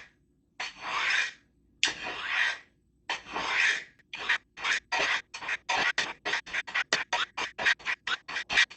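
Steel kitchen knife blade drawn down the coarse ceramic rods of a triangular stick sharpener, the edge rasping on the ceramic. Three slow strokes a little under a second each, then, about four seconds in, quick short strokes about three a second.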